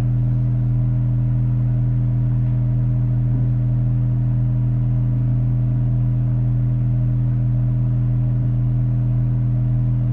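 A steady, low-pitched droning tone with a ladder of overtones above it, held unchanged: the test signal being played through the amplifier under test.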